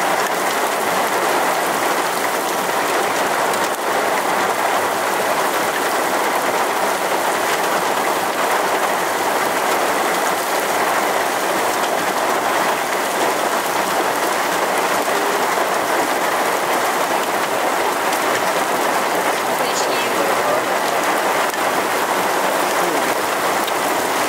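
Heavy cloudburst rain falling steadily on a gravel road and tall grass: a dense, even hiss of countless drops that doesn't let up.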